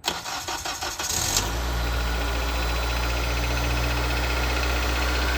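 Acura RSX's four-cylinder engine turning over on the starter for about a second, then catching and settling into a steady idle, with no squeal from the newly fitted serpentine belt.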